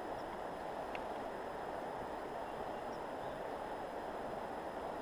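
Steady rush of shallow river water flowing over stones.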